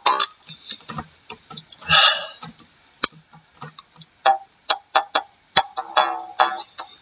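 Norwegian jaw harp (munnharpe) played by a beginner: irregular sharp plucked twangs with ringing, shifting overtones, a short lull about halfway, then a quicker run of plucks.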